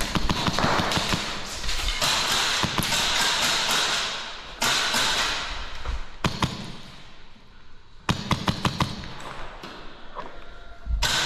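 Airsoft shots in a large empty concrete hall: sharp cracks in quick runs, the clearest a string of about seven in a second about three quarters of the way through, with a long noisy stretch in the first few seconds.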